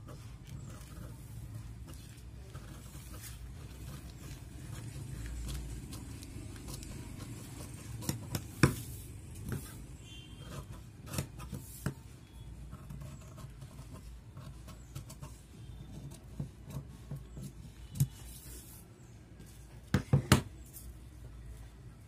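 Large steel tailor's shears cutting blouse fabric and its paper pattern on a wooden table: soft snipping and rustling with scattered clicks. A few sharp knocks near the end, as the shears are set down on the table.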